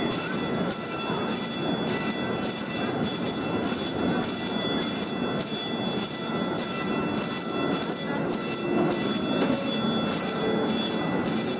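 Narrow-gauge 4-4-0 steam train running along the track, a steady rolling rumble with an even beat of about two pulses a second and a faint high ringing whine over it.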